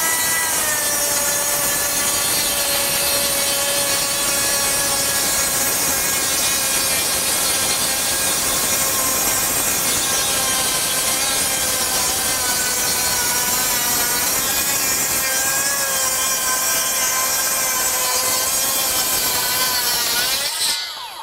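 Makita 40V XGT brushless rear-handle 7-1/4-inch circular saw making one long, continuous rip cut along a board. The motor's whine holds steady under load with slight dips in pitch, and the saw is running warm after repeated back-to-back cuts. Just before the end the pitch rises as the blade comes free, and the saw winds down.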